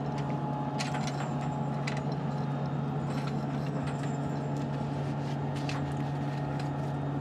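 Steady hum of the space station's cabin ventilation fans and equipment: a low drone with a fainter higher whine over even air noise, and a few light clicks and knocks from handling.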